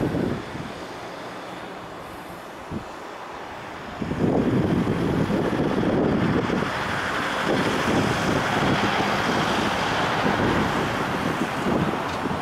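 Wind buffeting the microphone over a steady outdoor background rumble, both louder from about four seconds in.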